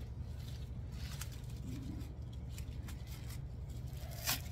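Light rustling, clicks and scrapes of artificial greenery stems and leaves being handled and pushed into floral foam, the sharpest near the end, over a steady low hum.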